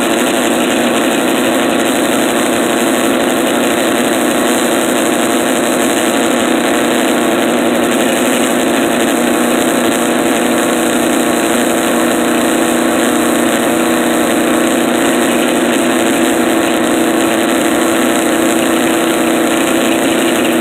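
Drill running steadily as it bores into an aluminum log clamp end, binding slightly in the aluminum, over the sawmill's running engine: one unbroken drone.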